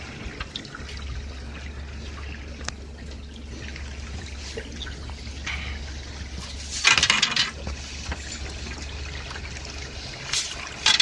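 Water splashing and sloshing at the boat's side over a steady low hum, with a loud splash about seven seconds in and more splashes near the end.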